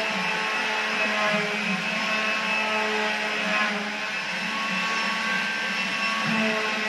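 Air-fed paint spray gun spraying with a steady hiss, over a steady mechanical whir.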